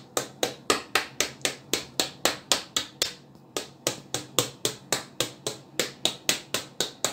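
A metal fork pricking rounds of dough on a metal baking tray, each stab ending in a sharp click of the tines against the tray, about four or five a second in a steady rhythm, with a short break about three seconds in. The dough is pricked all over so it will not puff up in the oven.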